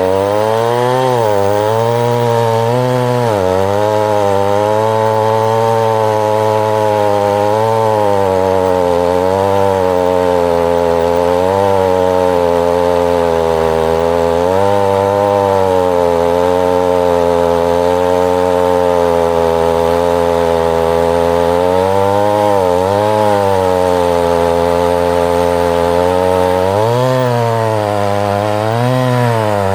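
Chainsaw running steadily under load, its engine pitch dipping and recovering every couple of seconds.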